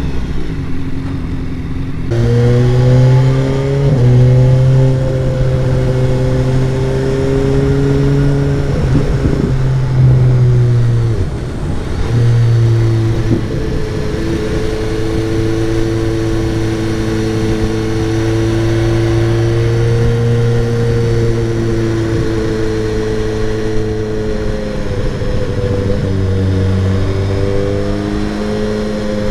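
Motorcycle engine running under way, its note holding steady for stretches and then rising and dropping as the throttle and gears change.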